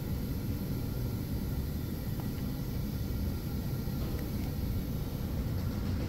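Steady low background rumble, with a couple of faint ticks from a small plastic wire connector being handled.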